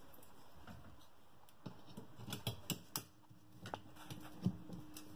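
Scattered light clicks and taps, starting about a second and a half in, as a sheet of stainless steel mosaic tile is set and pressed into place on the wall.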